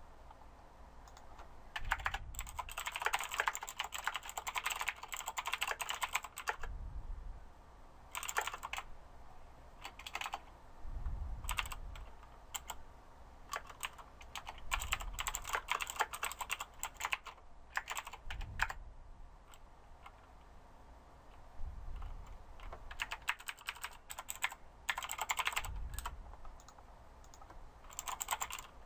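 Typing on a computer keyboard: rapid runs of key clicks in bursts of a few seconds, with short pauses between them.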